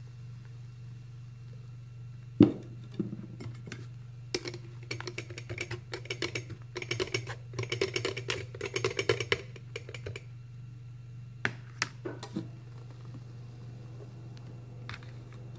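A metal spoon scraping and clicking against a stainless steel mesh tea strainer, pushing blended bitter gourd pulp through into a mug: a dense run of quick clicks and scrapes in the middle, with a sharp knock a couple of seconds in and a few single clicks near the end. A steady low hum runs underneath.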